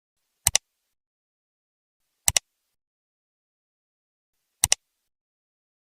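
Three sharp double clicks, each pair two quick clicks close together, about two seconds apart in otherwise dead silence.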